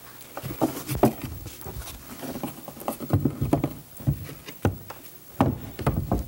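Wooden panels knocking and bumping against a plywood theater scale model as an orchestral-shell insert is handled and fitted in place. The knocks and thumps are irregular, with the sharpest about a second in and several more near the end.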